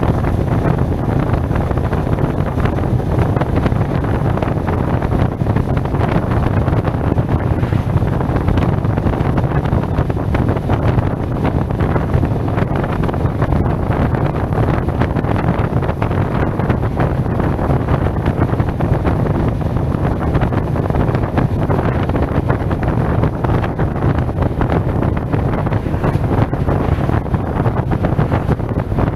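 Steady, deep wind rumble on the microphone of a helmet-mounted action camera while riding a SYM Maxsym TL 508 maxi-scooter, with the scooter's running and road noise mixed in beneath it.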